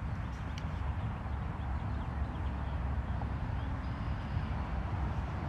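Steady low rumbling noise with a fainter hiss above it and no distinct event.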